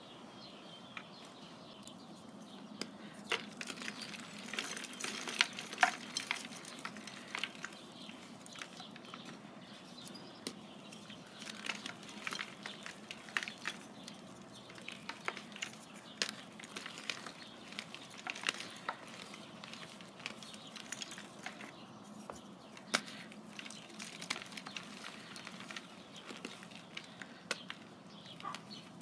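Blue powdery crumble balls crushed and broken apart by hand in a plastic tub: dense, crunchy crackling with sharp snaps, coming in irregular bursts as the lumps give way, with powder sifting back into the tub.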